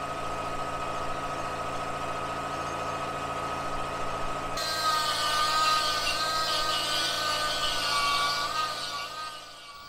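Pneumatic die grinder running with a steady high whine. About halfway through, the burr bites into the metal: a gritty hiss joins in and the whine wavers and dips under load, until it stops near the end.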